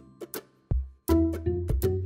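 Background music: a melody of short notes over bass notes, breaking off for about half a second in the first half before picking up again.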